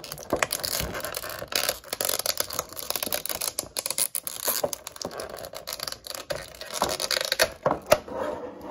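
Plastic packaging crinkling and crackling as it is handled and torn open, with many small clicks, while a Halo Mega Construx minifigure is unwrapped.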